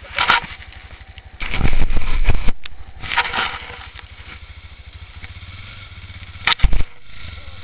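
Honda Dominator's single-cylinder four-stroke engine running at idle with an even low pulse, revved up hard for about a second roughly one and a half seconds in. A couple of sharp loud thumps near the end.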